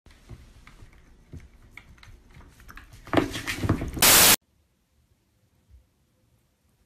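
Faint knocks and shuffling as a cat moves across a wooden table, rising into a louder, noisier few moments about three seconds in. These are cut off by a short, loud burst of TV-static hiss, the loudest sound, followed by near silence.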